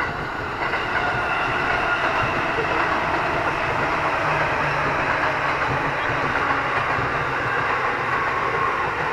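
JR Kyushu 811 series electric train running past on the adjacent track: a steady rush and rumble of wheels on rails that grows louder a little under a second in and holds.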